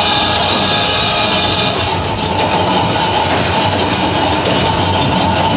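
A 762 mm narrow-gauge electric railcar of the Sangi Railway Hokusei Line running, heard from inside the car. Steady running noise with high ringing tones that fade about two seconds in, then a few clicks of the wheels over the rail.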